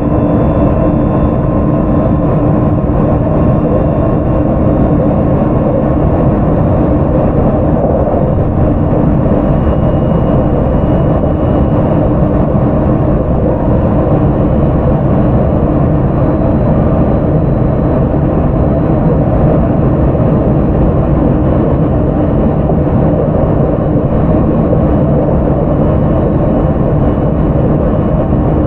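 Onboard running sound of a JR 681 series electric train car, KuMoHa 681-507, with Toshiba GTO-VVVF traction equipment: a steady rumble of wheels on rails while it runs between stations. Faint thin tones sit above the rumble.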